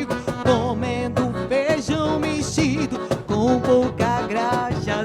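Live band music: an instrumental passage between sung verses, a wavering lead melody over a steady accompaniment.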